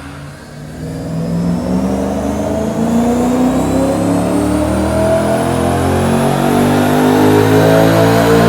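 BMW E92 M3's S65 V8 under full load on a chassis dyno, breathing through an Akrapovic Evolution titanium exhaust. From about a second in, the revs climb steadily and the engine gets louder throughout.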